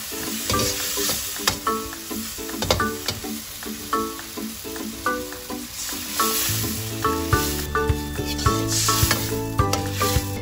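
Food sizzling in hot oil in a frying pan while a utensil stirs it, with scattered clicks and scrapes against the pan, over light background music that picks up a bass line about two-thirds of the way through.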